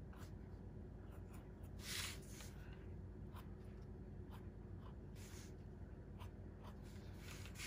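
Ultra fine point Sharpie marker scratching on drawing paper in short quick strokes, inking fur lines, with a longer, louder stroke about two seconds in.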